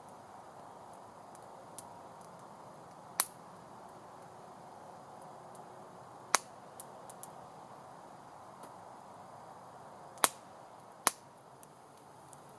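Small wood campfire crackling: a faint steady hiss with four sharp pops of burning wood, about 3, 6, 10 and 11 seconds in, and a few fainter ticks between them.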